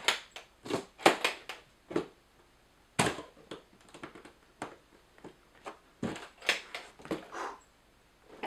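Handling of a hardshell guitar case with metal latches: an irregular series of sharp clicks and knocks as the latches are worked and the case is shifted.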